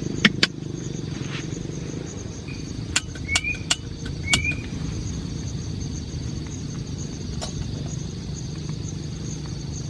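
Steady rain on a tent, heard as an even low patter, with a few sharp clicks and two short chirps between about three and five seconds in.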